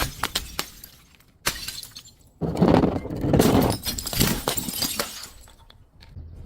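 Glass breaking and shattering: a first crash about a second and a half in, then a louder, longer one, each followed by crackling and scattered clinks of shards that die away.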